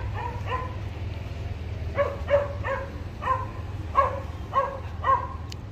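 A dog barking repeatedly in short barks: two near the start, then a run of about seven, roughly one every half second, from about two seconds in.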